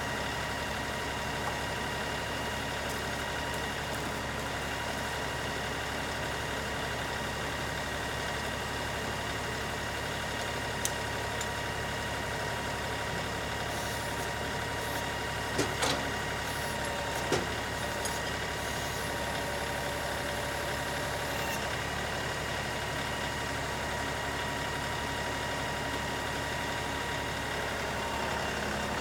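LS XR3135 compact tractor's diesel engine running steadily, with a steady whine over it. A few short, sharp clunks about halfway through.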